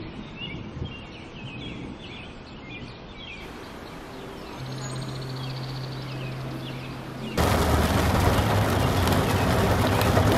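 Small birds chirping for the first three seconds or so. Then a quieter stretch with a low steady hum. From about seven seconds in, a loud, steady rush of rain on a car.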